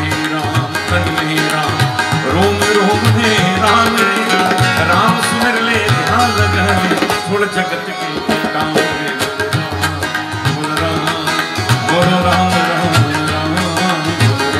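Tabla playing a rhythm, its deep bass drum strokes prominent, under harmonium, guitar and keyboard in an instrumental passage of live devotional bhajan music.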